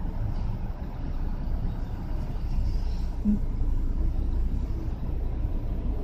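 Steady low rumble of outdoor background noise, with no bird calls heard.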